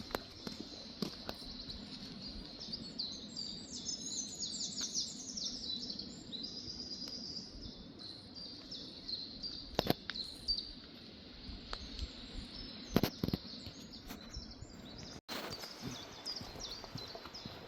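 Several small birds chirping and trilling in quick, high-pitched phrases, over a low steady rustle, with a few sharp clicks about two-thirds of the way through.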